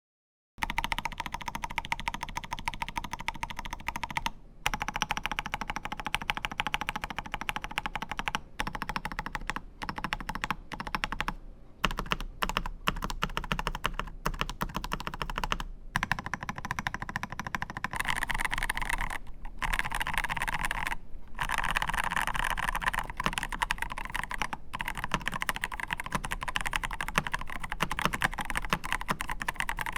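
Typing on a MelGeek Pixel custom mechanical keyboard: a fast, continuous clatter of keystrokes that starts about half a second in, with a few brief pauses.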